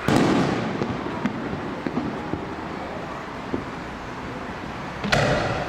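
Two fireworks shells bursting, about five seconds apart, each a sudden bang that fades away over about a second, with a few faint pops between them.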